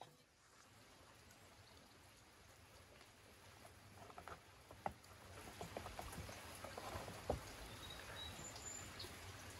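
Knife cutting into a soft block of butter in a clay bowl, with soft scraping and small clicks of the blade and bowl. The clicks start about four seconds in, over faint steady background noise.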